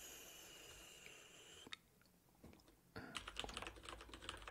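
Faint computer keyboard typing: a couple of single keystrokes, then a quick run of keys from about three seconds in.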